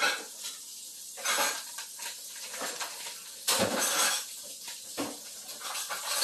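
Dishes and utensils being handled, clattering in several separate short bursts, the loudest about three and a half seconds in.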